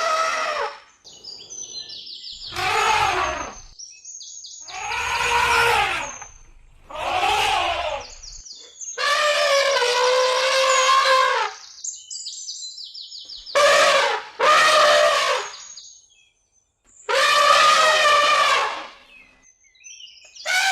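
African savanna soundscape: an elephant trumpets about eight times, each call one to two seconds long and held on a steady pitch. Birds chirp in the gaps between the calls.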